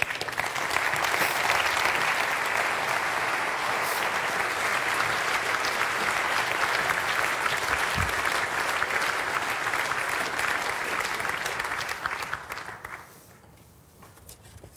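Audience applauding steadily in a large hall for about thirteen seconds, then dying away near the end. There is one brief low bump about halfway through.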